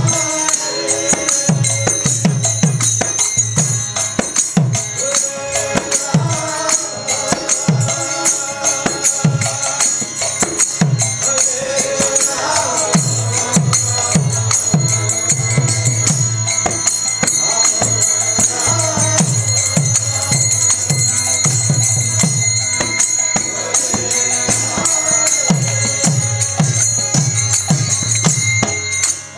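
Live kirtan: voices singing a devotional chant over mridanga drums and hand cymbals. The drum plays a quick rhythm of bass strokes that each sag in pitch, and the cymbals ring steadily above.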